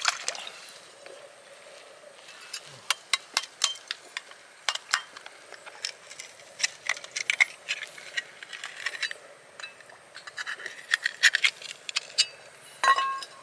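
Oyster shells being knocked and handled: irregular sharp clicks and clinks, coming thicker towards the end. Near the end one louder clink rings briefly.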